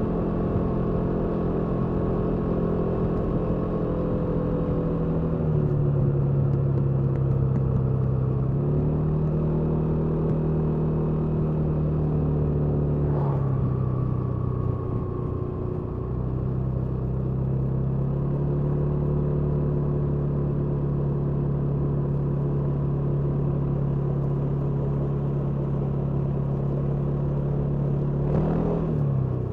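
Kymco Downtown 350i scooter's single-cylinder engine through its stock exhaust, running under way at a steady note. Its pitch dips and climbs back a few times: about five seconds in, around thirteen seconds in, and briefly near the end.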